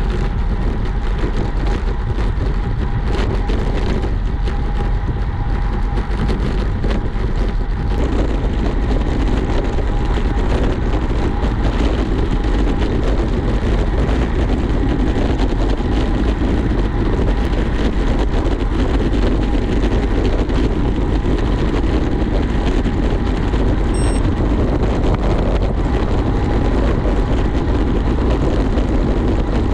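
Steady rushing noise of wind and road while on the move, heaviest in the low end, with a faint steady whine.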